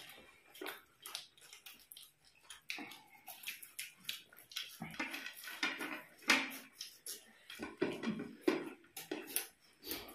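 Two people eating by hand: irregular crunching and chewing of puffed rice and fritters, with fingers scraping and tapping on ceramic plates.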